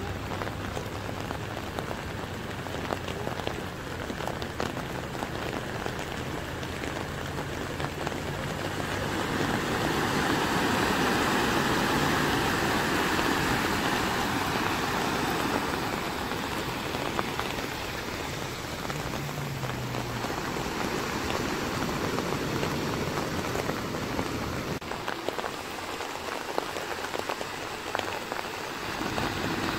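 Heavy rain pouring onto a flooded street as cars drive through deep standing water. A low engine hum runs through the first seconds. About ten seconds in, the rushing noise swells for several seconds as a car ploughs through the water close by, its wheels throwing up spray.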